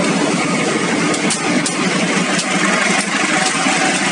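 Diesel-electric locomotive passing close by with its diesel engine running loud and steady, and a few sharp clicks from the wheels on the rails.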